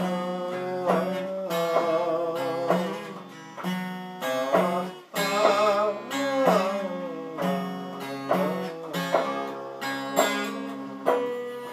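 Handmade box-bodied string instrument played as blues: plucked notes over a repeating low bass note, some notes sliding in pitch, in an instrumental passage between verses.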